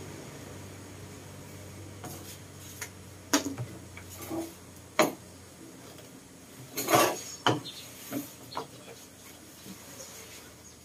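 Light, irregular clatter: a handful of sharp clicks and knocks, the loudest about five and seven seconds in, over a faint steady low hum.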